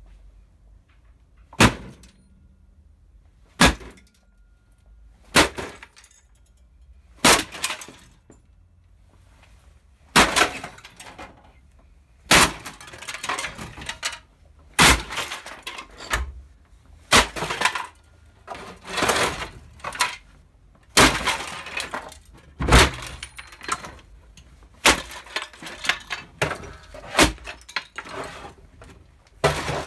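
Samsung CRT television being smashed by repeated blows from a heavy wooden block: single hard knocks about every two seconds, then from about ten seconds in a run of louder crashes with the plastic cabinet cracking and broken pieces clattering between the hits.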